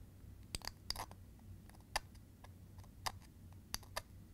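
Razor blade scraping and clicking in the channel of a painted dishwasher side mounting bracket, taking off excess paint: about seven faint, sharp, irregular clicks.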